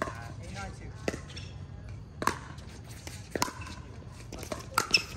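Pickleball rally: paddles hitting the plastic ball back and forth, sharp pops about a second apart.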